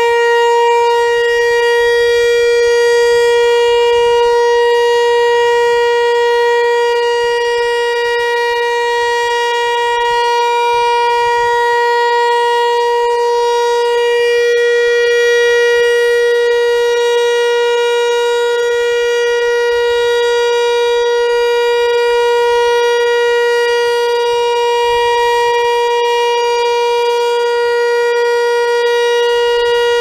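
Federal Signal 508-128 tornado siren sounding a steady alert tone at one fixed pitch. Its loudness holds even instead of swelling and fading, because the broken rotator leaves the horn pointed one way rather than sweeping around.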